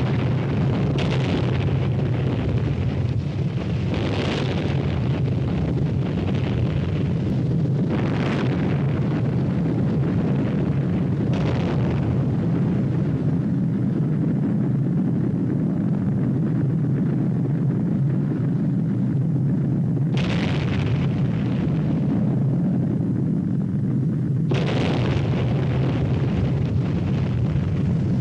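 Nuclear explosions: a continuous deep rumble, with a fresh blast breaking in every few seconds, about six in all.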